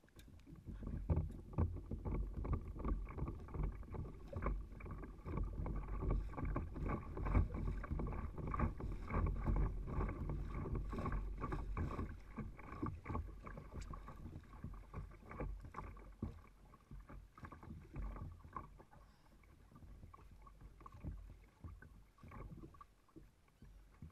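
Choppy water slapping and splashing against a kayak's hull, a dense run of irregular knocks and sloshes that is louder in the first half and eases off after about twelve seconds.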